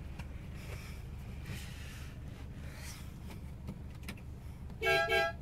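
Mitsubishi L200 pickup's engine idling steadily, heard from inside the cab. Near the end come two short, loud toots of a vehicle horn.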